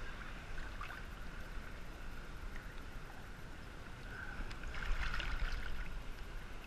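Seawater sloshing and lapping against a GoPro camera bobbing at the surface, growing louder with small splashes about four and a half seconds in.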